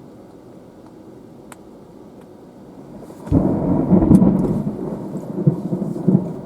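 A thunderclap breaks in sharply about three seconds in and rolls on as a loud, uneven low rumble from the supercell's storm, over a steady background hiss.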